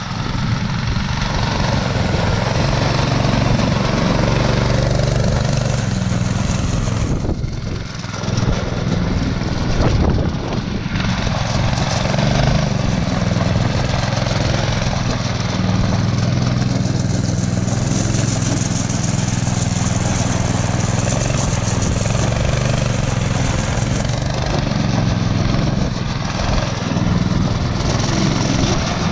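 Small go-kart engine running steadily as the kart is driven, the sound dipping briefly about eight seconds in; the engine is brand new and only just broken in.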